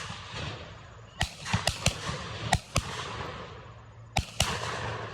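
A string of about eight shotgun shots at dove-hunt range. Several come in quick pairs a fraction of a second apart, and each shot trails off in a short echo.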